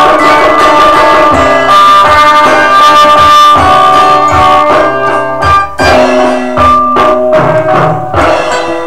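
Solo classical guitar playing a slow fingerpicked piece, its plucked notes ringing over one another. After about five seconds the notes come more sparsely, with short dips between them.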